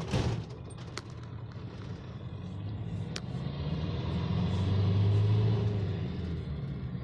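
Motor vehicle running with a low rumble that grows louder about five seconds in and then eases off, with two sharp clicks along the way.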